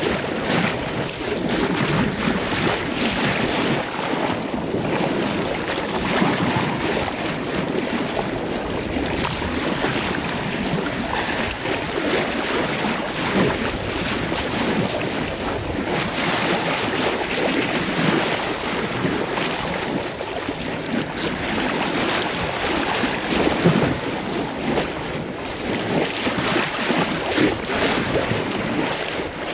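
Wind buffeting the microphone over water rushing and splashing along the hull of a sailboat under way. It is a steady, loud rush of noise with no distinct events.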